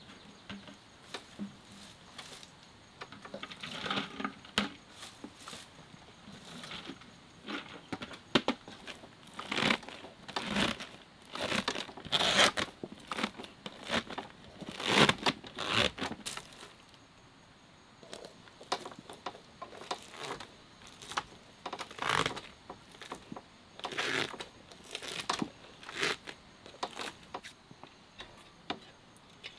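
Shredded cabbage being stuffed into a clear jar and pressed down by hand: irregular crunching and crinkly rustling in quick bursts, easing off for a couple of seconds midway.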